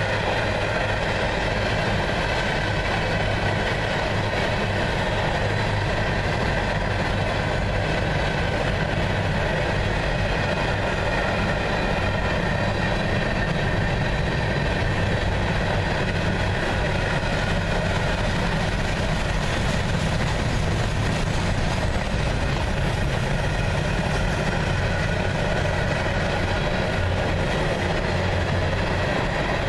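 Freight train cars, mostly covered hoppers, rolling past on steel wheels: a steady, unbroken rolling rumble of wheels on rail.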